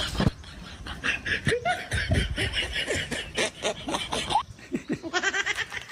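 Laughter in many short, quick bursts.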